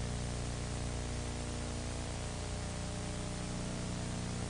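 Steady hiss with a low electrical hum and its overtones: the background noise of the narration recording, with no other event.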